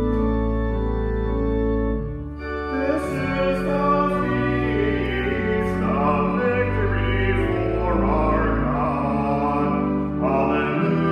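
Church organ playing a slow liturgical hymn setting: long sustained chords over a deep held bass, growing fuller about two and a half seconds in.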